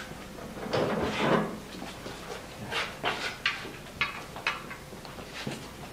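Workshop handling noise: a scraping rustle about a second in, then a string of short, irregular knocks and clicks.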